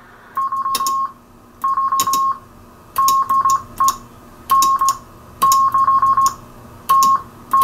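Morse code (CW) from a Johnson Viking II transmitter, heard as a steady tone of about 1 kHz on a Kenwood 820 receiver, keyed in groups of dits and dahs with sharp clicks as the elements start and stop. The keyer drives the tube transmitter through a Keyall HV module, and the clean keying shows the module working.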